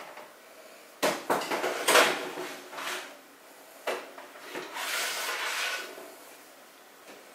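Metal baking sheet and oven rack clattering as a tray is slid into an oven and the oven door is worked: a run of knocks and rattles, loudest about two seconds in, another knock near four seconds, and a longer scraping rush around five seconds.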